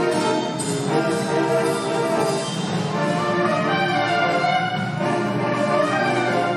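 A large saxophone ensemble of alto, tenor and baritone saxophones playing together in full sustained chords, with new chords entering about once a second.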